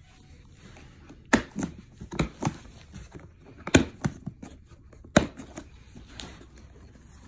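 Plastic latches of a long hard gun case being unsnapped, a series of sharp clicks and snaps, the three loudest about a second and a half apart.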